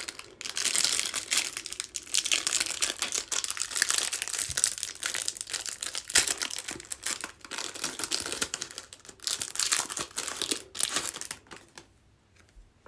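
Wrapper of a Chronicles soccer trading-card pack crinkling steadily as it is handled and torn open by hand. The crackling stops about a second before the end.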